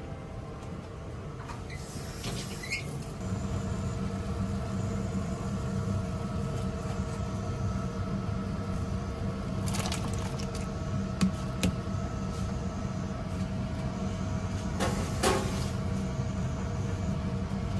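A large pot of water at a rolling boil on a glass-top hob: a steady low rumble with a faint steady hum over it. A few light clinks come midway, and near the end a brief clatter and splash as the skewered shrimp go into the boiling water.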